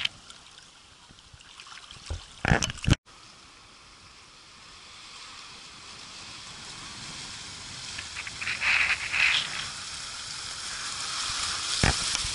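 Shallow seawater sloshing and splashing close around the microphone, over a steady hiss of small waves that grows louder. There are a few sharp splashes or knocks about two to three seconds in, and the sound cuts out briefly just after.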